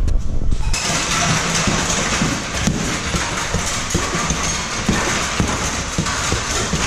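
Boxing gloves thudding irregularly into a heavy punching bag, under a steady rushing noise that starts suddenly about a second in.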